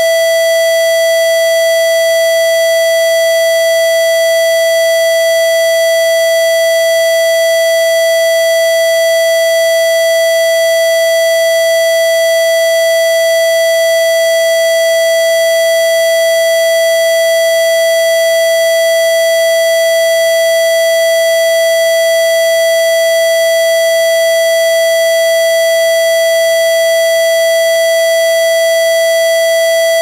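Siren sounding a loud, steady tone held at one pitch, unwavering, in a siren test.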